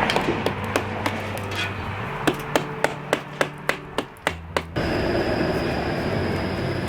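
Hammer blows knocking out loose, deteriorated brick and mortar from a brick column, a quick run of sharp strikes about three a second. About two-thirds of the way in the strikes stop and a steady power-tool whir with a thin high whine takes over.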